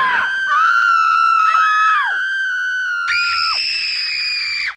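Human screaming sound effect: long, very high-pitched held screams that overlap, each ending with a sharp drop in pitch. A last shrill scream starts about three seconds in and cuts off suddenly at the end.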